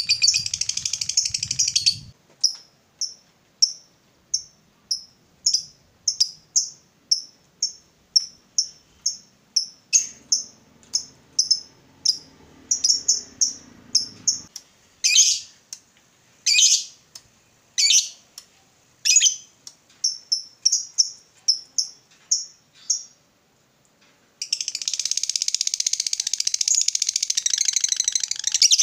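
Fischer's lovebird giving a long, rapid chattering trill (the prized 'ngekek'), which breaks off about two seconds in into a run of sharp single chirps about two a second, with a few louder downward-sweeping calls among them. Near the end it launches into another long unbroken trill.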